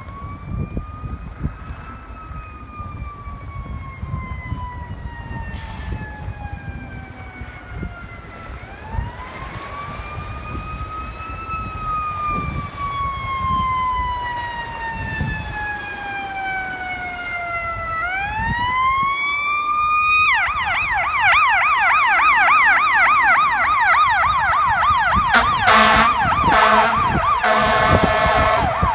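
Fire ladder truck's siren sounding a slow rising and falling wail, which switches about two-thirds of the way through to a fast yelp. Near the end come air horn blasts, the loudest sound, over the diesel engine's rumble.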